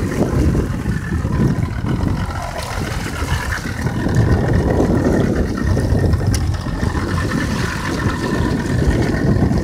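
Small fishing boat's motor running steadily at low speed, with a few steady whining tones over an uneven low rumble of wind and sea.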